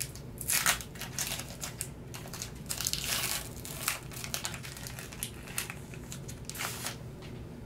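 A Pokémon Sun & Moon booster pack's foil wrapper crinkling as it is worked open by hand, in irregular bursts. The strongest come about half a second in, around three seconds and near the end.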